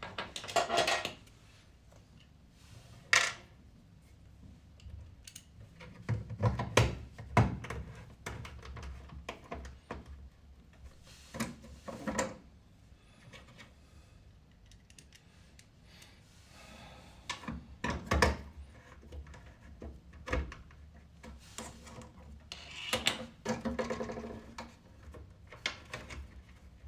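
Irregular knocks, clunks and scraping as washing machine panels and parts are handled and set back in place, with a few louder knocks scattered through.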